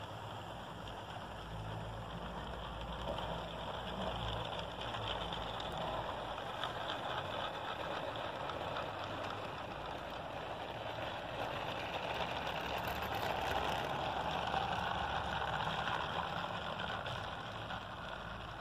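HO-scale model freight cars rolling along the track, a steady rolling rumble that swells a little partway through and eases off near the end.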